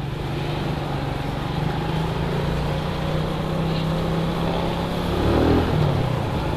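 Motorcycle engine running steadily while riding along a road, with wind and road noise.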